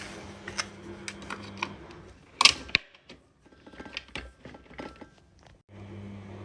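A series of light clicks and taps, with one louder clatter about two and a half seconds in, over a low steady hum that drops out partway and comes back near the end.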